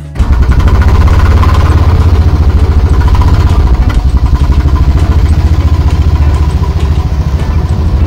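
Motor scooter engine running close by, a loud, steady low-pitched sound with a fast even flutter.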